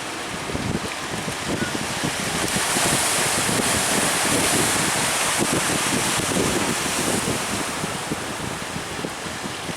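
Sea surf breaking with strong wind buffeting the microphone; the rush of a breaking wave swells up about two and a half seconds in and dies away a few seconds later.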